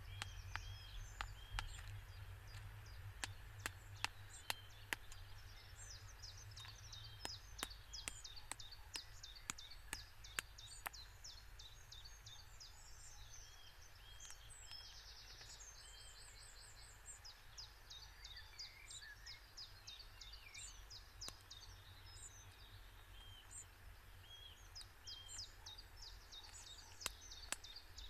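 A song thrush knocking a snail shell against a stone anvil: sharp clicks in an irregular series through the first ten seconds or so, sparse in the middle, and again near the end. Other birds sing and chirp throughout.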